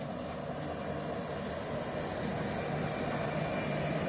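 Diesel locomotives approaching, their engines a steady low drone that grows louder as they come closer.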